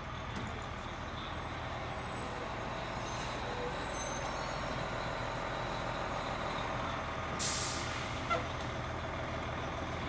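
Fire truck's diesel engine running at idle, with a sharp hiss of air brakes releasing air about seven seconds in, followed by a short click.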